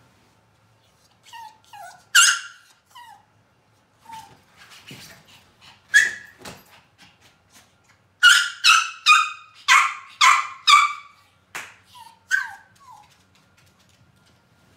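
Yorkshire terrier giving high-pitched yips and short whines. Single yips come about two and six seconds in, then a run of about six quick yips in the middle and softer whines near the end.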